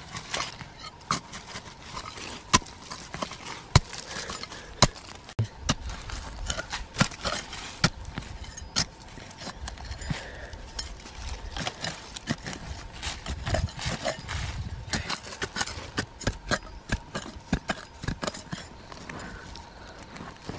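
Digging a burrow out of dry, crumbly soil: irregular sharp knocks and scrapes, about one or two a second, as the hard earth is chipped and broken away.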